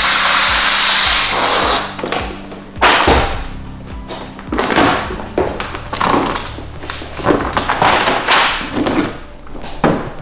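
A plastic squeegee pushed in short strokes across wet paint protection film on a car bonnet, scraping about once a second. It follows a loud steady hiss that stops about a second and a half in. Background music plays underneath.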